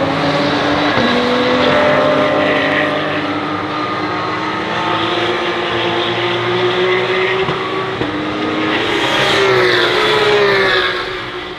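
Porsche 911 GT3 Cup (992) race cars' four-litre flat-six engines running at high revs, the pitch climbing slowly as they accelerate. Near the end a car goes by louder, its pitch falling as it passes, then the sound drops away.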